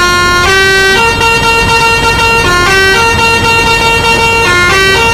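Telolet-style multi-tone musical bus horn playing a melody of held notes that step up and down in pitch every half second to a second.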